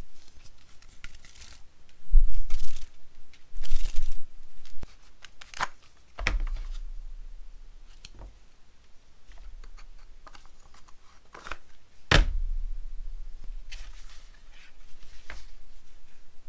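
Thread being pulled through punched holes in hippo leather during hand-stitching: several short rasps as the stitches are drawn tight, with light handling clicks and one sharp knock about twelve seconds in.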